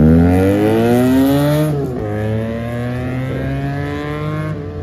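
QJ Motor SRK 400 motorcycle's 400 cc parallel-twin with an aftermarket exhaust, accelerating hard with the pitch climbing, shifting up about two seconds in, then pulling again more quietly as it rides away.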